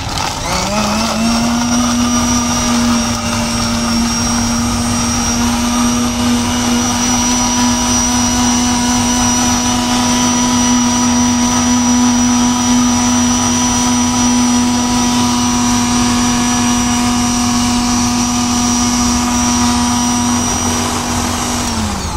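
Electric blender running on a jar of mango milkshake, spinning up to a steady, even motor whine in the first second and winding down just before the end.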